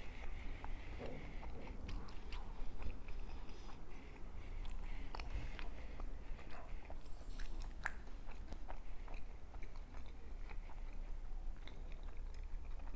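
Close-up chewing and biting of a chilaquiles torta, with many small wet mouth clicks and smacks scattered throughout.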